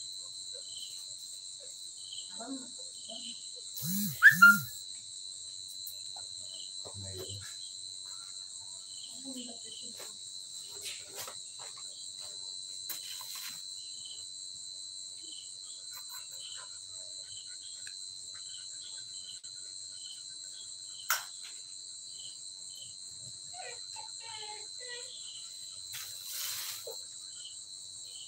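Insects, likely crickets, chirping in a steady high drone throughout. Two short loud low sounds come about four seconds in, and there is a single sharp click past the twenty-second mark.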